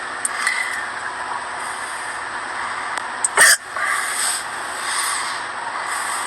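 A girl hiccuping: one sharp, loud hiccup about three and a half seconds in, over a steady background hiss.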